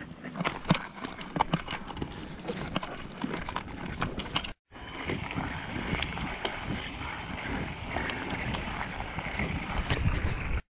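Wind buffeting an action camera's microphone over the crunch and rattle of a mountain bike rolling on gravel, with frequent small clicks and knocks from the bike. The sound drops out briefly about halfway through.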